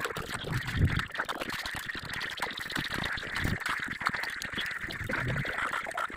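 Light irregular clicks and scraping of small metal hand tools working on the valve tappet adjuster and feeler gauge of a scooter cylinder head.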